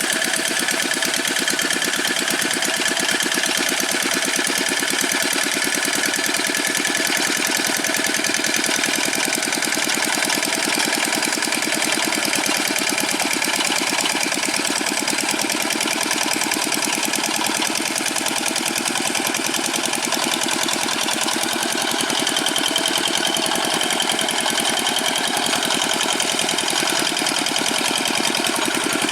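Old Dongfeng single-cylinder diesel engine of a Quick G600 two-wheel hand tractor, running steadily at an even speed.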